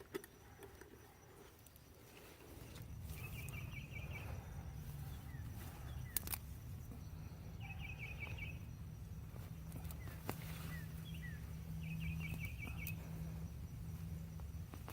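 A small bird singing a short, high trill three times, about four seconds apart, over a low steady rumble that comes up a couple of seconds in.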